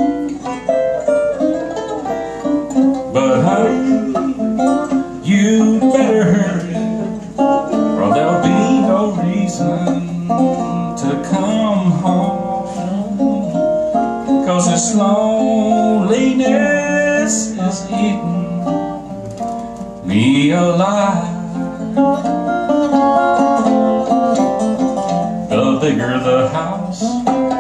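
Instrumental break between verses of a country song: a 1930s National all-metal four-string tenor resonator guitar and a second small plucked string instrument picking quick runs of notes over a steady rhythm.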